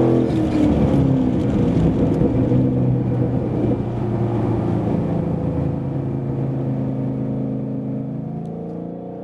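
Ford Mustang GT's 5.0-litre V8 through a Borla Atak exhaust, revs easing off and then holding a steady low drone that gradually fades away near the end.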